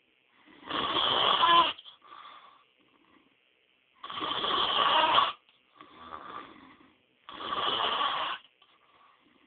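A man snoring loudly: three long snores about three seconds apart, each followed by a shorter, softer breath sound.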